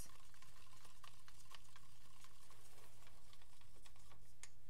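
Wooden craft stick stirring acrylic pouring paint in a plastic cup: faint scraping with scattered light clicks against the cup, over a steady low hum.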